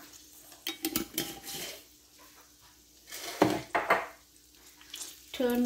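Kitchen utensils clattering in two short bouts, about a second in and again past three seconds, over a faint sizzle of skewered quail eggs cooking on a hot tawa.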